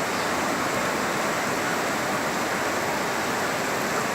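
Heavy rain pouring down while a torrent of rainwater rushes through the street, a steady, unbroken rush that sounds like a river.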